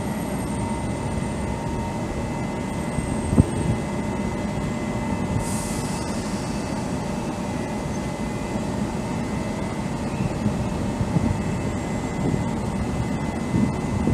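A Taiwan Railways E200-class electric locomotive standing at the platform: a steady low hum with faint steady whining tones over it. There is a single thump about three and a half seconds in and a short hiss about five and a half seconds in.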